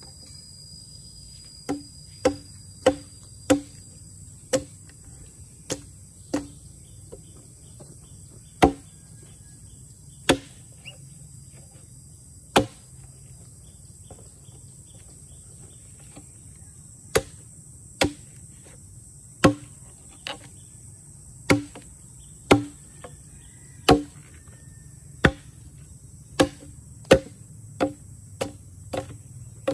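Sharp knocks, about two dozen in an irregular rhythm with a pause of several seconds midway, over a steady high-pitched insect drone.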